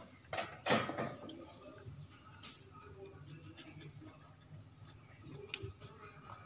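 A steady high-pitched insect trill. Two sharp knocks come in the first second, and a single click near the end.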